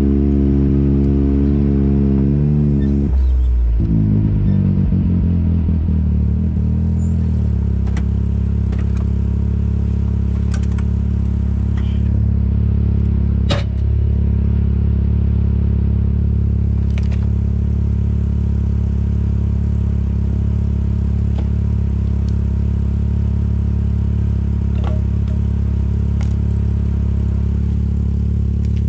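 Side-by-side UTV engine running as the machine drives, then settling into a steady idle about seven seconds in. A few sharp clicks and knocks fall over it, the loudest a little under halfway through.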